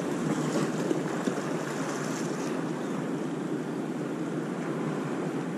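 Ocean surf washing onto the beach: a steady rush of breaking waves.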